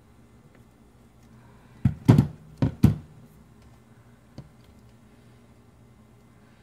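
A camo-taped rifle scope handled and set down on a cutting mat: four dull knocks and thumps in quick succession about two seconds in, then a faint click.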